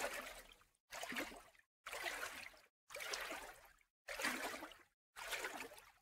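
Small Black Sea waves lapping and sloshing in the shallows at the shoreline, heard as faint, regular bursts about once a second, each fading out and then cut off by a moment of dead silence.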